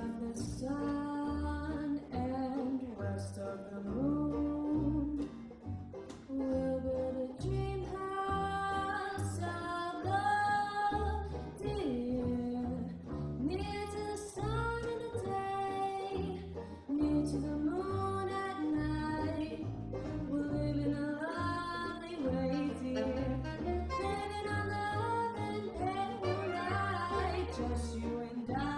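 A small jazz combo playing a ballad: a sustained melody line over a plucked upright double bass and guitar chords.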